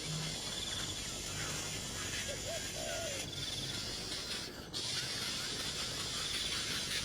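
A steady high hiss like an insect chorus, with a few short bird calls about two and a half seconds in.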